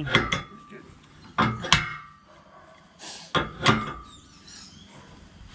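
Adjustable wrench (shifter) clinking against the steel tow-ball nut and mounting bracket as the tow ball is tightened onto its plate: sharp metallic clanks with a short ring, in three pairs about a second and a half apart, as the wrench is reset for each turn.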